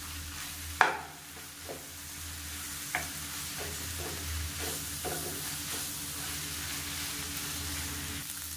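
A utensil stirring and scraping thuthuvalai leaves, coconut and shallots in a pan of hot oil as they sauté, over a steady soft sizzle; the leaves are being cooked down until they wilt and change colour. Irregular scrapes and knocks against the pan, the loudest about a second in.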